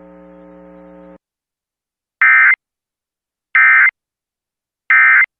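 Emergency Alert System end-of-message signal: three short, identical bursts of shrill digital data tone, a little over a second apart, marking the end of a NOAA Weather Radio warning. A faint steady hum from the broadcast is heard for about the first second before it cuts off.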